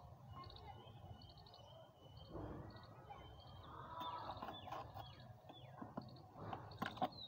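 Quiet scraping and soft slaps of wet soil being scooped from a plastic bucket with a wooden-handled tool and packed into a plastic bottle, with a few sharp taps near the end. Small birds chirp in short repeated bursts in the background.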